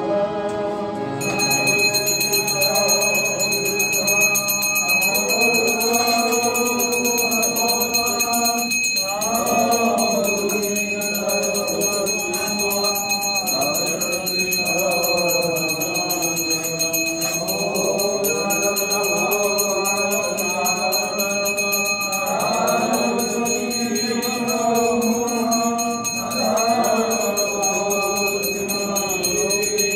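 Voices singing an evening arti hymn together in chorus. From about a second in, a bell rings steadily alongside.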